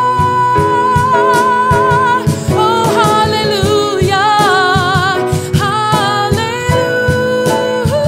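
A woman singing long held notes with vibrato over piano accompaniment.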